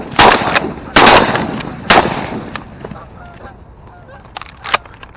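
Shotgun blasts from two hunters firing into a flock of Canada geese: three shots in quick succession in the first two seconds and one more near the end, with geese honking in between.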